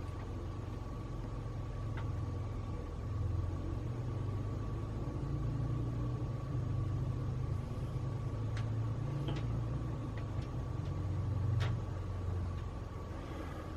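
Schaublin precision lathe running, a low hum that shifts slightly in pitch, with a faint steady high tone and a few light clicks.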